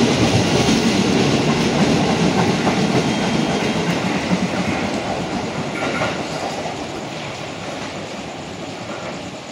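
JR 205 series electric commuter train running past and away along the rails, its wheel-and-rail noise fading steadily as it recedes.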